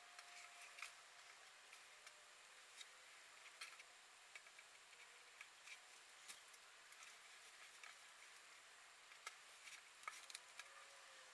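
Near silence, with faint scattered clicks and light rustles of hands handling a damp cotton T-shirt on a tabletop as it is twisted into a spiral.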